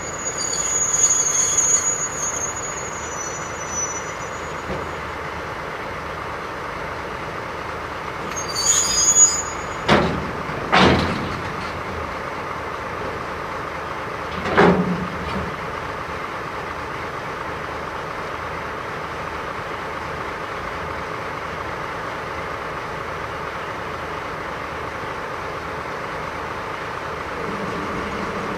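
DD51 twin-engine diesel-hydraulic locomotive with a train of rail-carrying flat wagons coming to a stop. High-pitched brake and wheel squeal comes in the first few seconds and again around nine seconds, then three sharp clanks from the train between about ten and fifteen seconds, all over the locomotive's steady engine rumble, which takes on a slightly higher note near the end.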